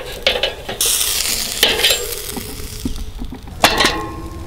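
Steak sizzling on a charcoal kettle grill, with a few sharp clacks of metal tongs against the grate.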